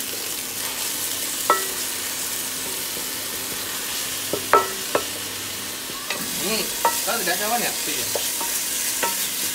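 Curry paste and red chili paste sizzling steadily as they fry in oil in a nonstick pan, stirred with a wooden spatula. The spatula knocks sharply against the pan a few times.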